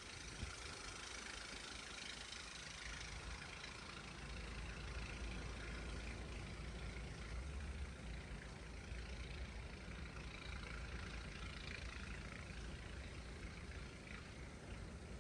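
Blizzard wind blowing without a break: a wide hiss with a low, fluctuating rumble of gusts buffeting the microphone.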